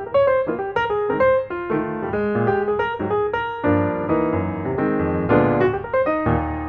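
Background music: a piano playing a run of quick notes, with chords in the lower register.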